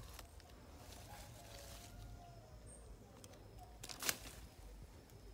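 Faint rustling of leafy ground cover and dry twigs as a hand reaches in among the plants, with one sharp, loud rustle about four seconds in.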